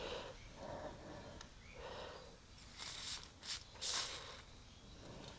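Two short hisses of an aerosol can of silicone spray lubricant, sprayed onto a tight, stripping Phillips-head handlebar clamp bolt to free it, with soft breathing between.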